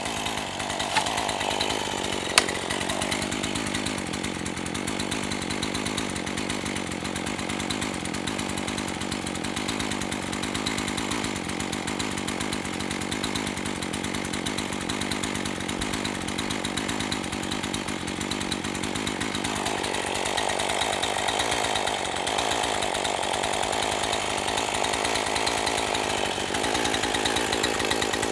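Two-stroke gasoline chainsaw running steadily, its tone shifting higher about twenty seconds in. A sharp click comes about two and a half seconds in.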